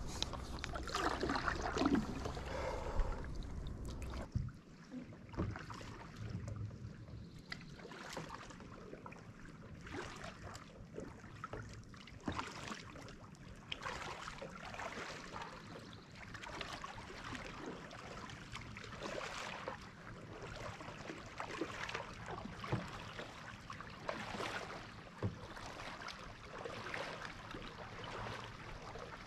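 Kayak paddle strokes dipping and splashing in the water, one every second or two. In the first few seconds there is a brief falling squeak and a couple of sharper knocks.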